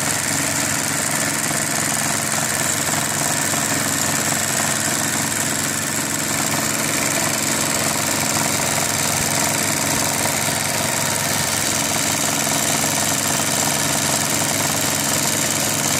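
Singer 319 sewing machine running steadily at speed, its needle stitching continuously through a quilt for free-motion stipple quilting, with the stitch length at zero and a darning foot fitted.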